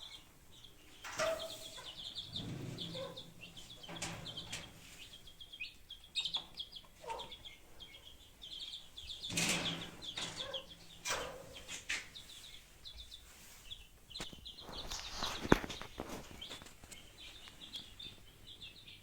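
Backyard chickens clucking over a continuous high chirping. There are a few louder rustling bursts, such as wings flapping.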